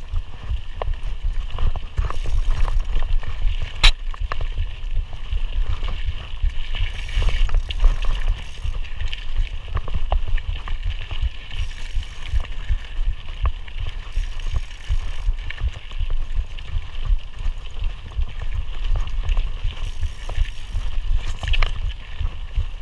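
Mountain bike being ridden over a dirt trail: a continuous low rumble and rattle from tyres and frame on the ground, with scattered small clicks and knocks and one sharp click about four seconds in.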